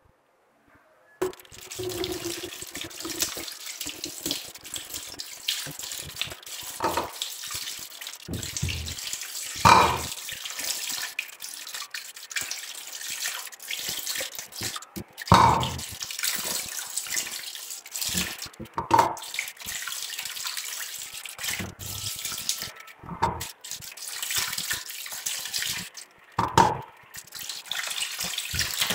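Kitchen tap running into a stainless steel sink while carrots are rinsed under it by hand. The water starts about a second in, with a few louder thumps and splashes every few seconds.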